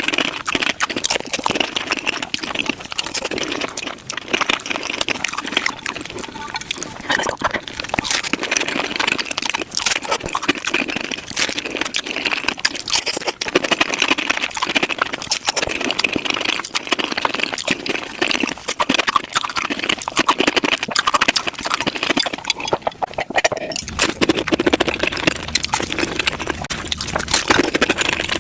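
Taco eating sounds sped up five times: a rapid, unbroken stream of crunching and chewing clicks.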